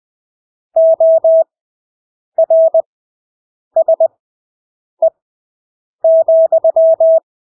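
Morse code (CW) practice tone at 20 words per minute with Farnsworth spacing: a steady beep of about 650 Hz keyed in dots and dashes, one character at a time with gaps of about a second between characters.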